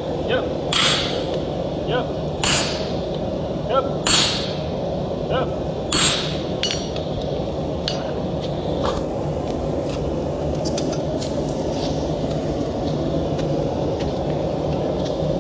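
Hammer blows on a handled fuller set on a red-hot axe head on an anvil, spreading the cheeks of the eye: four hard, ringing strikes about a second and a half to two seconds apart, then lighter, scattered knocks. A steady hum runs underneath.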